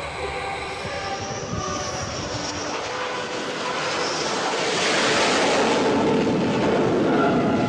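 Jet fighter engines running at high power, a dense rushing noise that grows louder about halfway through.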